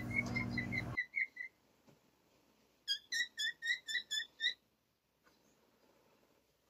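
Runs of short, high whistled chirps, about four or five notes a second. A steady hum beneath the first run cuts off about a second in, and a second run of about seven chirps comes near the middle.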